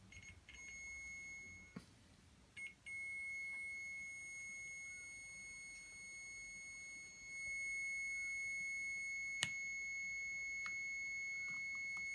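Digital multimeter continuity buzzer sounding a steady high-pitched beep as the test probes touch the speedometer's wiring and circuit board: on and off briefly a few times, then held for about nine seconds, the sign of an unbroken connection between the probed points. A sharp tick about nine seconds in.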